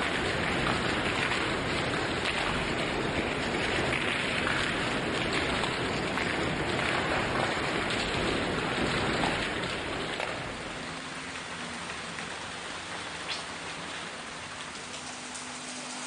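Heavy rain falling, a dense steady hiss of water. About ten seconds in it cuts to a quieter, lighter rain with separate drops ticking and a faint low hum beneath.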